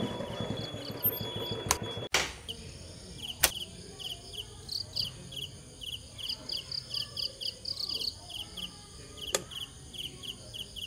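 Crickets chirping in a regular pulsing rhythm. Before that, a low engine rumble cuts off sharply about two seconds in. A few sharp clicks punctuate it, the loudest about three and a half seconds in.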